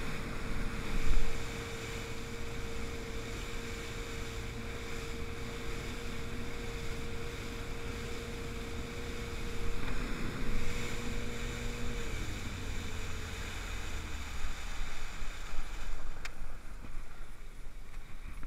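Small fishing boat's engine running steadily at speed, with water rushing along the hull. About twelve seconds in, the engine note drops away as the throttle is pulled back to slow the boat for a drift.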